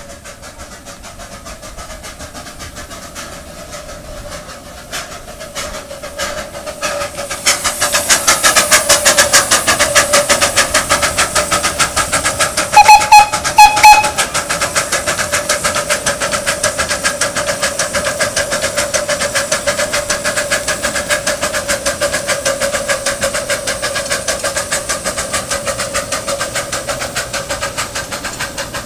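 1.5-inch-scale live steam model of Rio Grande K-27 2-8-2 No. 453 approaching and passing with rapid, even exhaust chuffs and steam hiss, growing loud about a quarter of the way in. About halfway through it gives three short whistle toots, then keeps chuffing as its cars roll by and the sound slowly fades.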